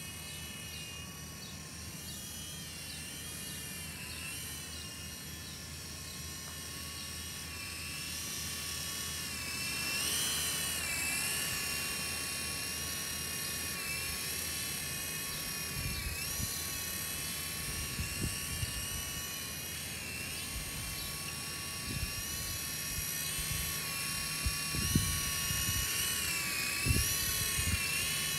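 Small electric RC helicopter in flight: a high motor and rotor whine that rises and falls in pitch as the throttle changes, with several dull thumps in the second half.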